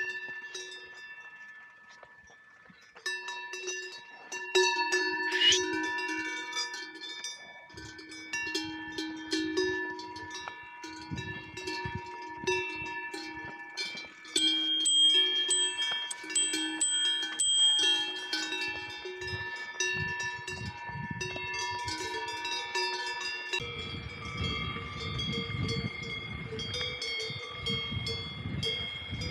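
Cowbells on grazing alpine cattle clanging irregularly, several bells at different pitches ringing over one another. A low rushing noise joins near the end.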